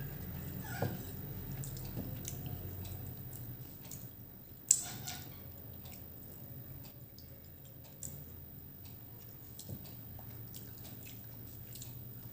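A person eating rice and curry by hand, with soft wet chewing and smacking clicks and one sharper click about five seconds in, over a low steady hum.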